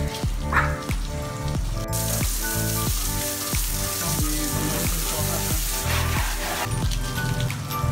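Water spraying from a hose onto a wet dog and a tiled floor: a steady hiss that starts about two seconds in and cuts off near the end, over background music.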